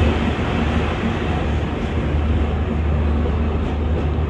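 Passenger express train arriving at a platform, its coaches running slowly with a steady low rumble and a constant noisy wash of running sound.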